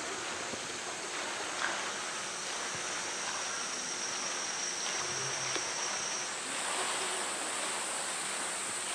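Water running steadily over concrete rock-work steps, with a thin, steady, high-pitched insect drone above it; about six seconds in, the drone gives way to a higher one.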